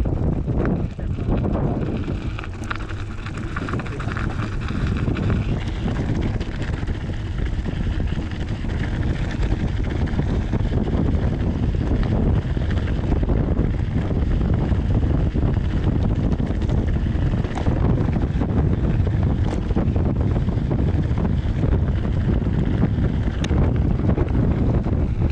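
Wind buffeting the microphone of a camera mounted on a moving bike: a steady low rumble, with a few faint ticks.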